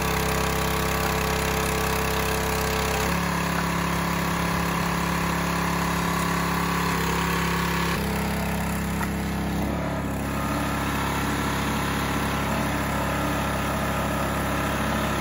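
Small gasoline engine of a 22-ton log splitter running steadily, its note changing a few times.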